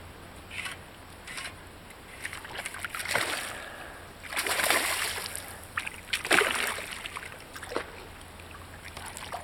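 Irregular splashing of water, loudest about four and a half seconds in and again around six seconds: a hooked grass carp thrashing at the surface.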